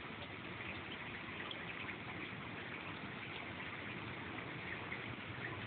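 Steady rain falling: an even hiss of water with small drop ticks running through it.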